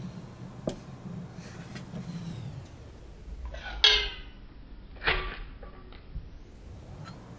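Metal flip-top windproof lighter being handled: a small click, then two sharp metallic clinks with a brief ring, about a second and a half apart, as its hinged lid is flicked.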